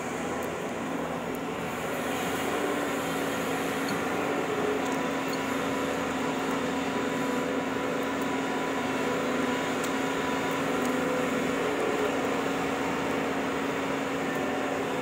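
Engine of a heavy vehicle running steadily at an even pitch, a little louder from about two seconds in.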